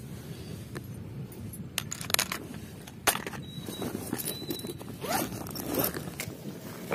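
Backpack zipper being pulled open in a few short rasping strokes, with sharp clicks and rustling from hands handling the bag and gear.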